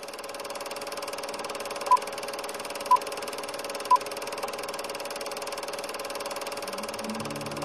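Old film projector sound effect running with a steady whir and rapid flutter, with three short beeps one second apart in the manner of a film-leader countdown. Plucked guitar music comes in near the end.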